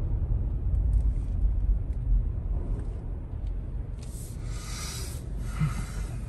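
Low rumble of a car moving slowly, heard from inside the cabin as it creeps across a ferry's steel vehicle deck, dying away as the car comes to a stop. A brief hiss about four seconds in.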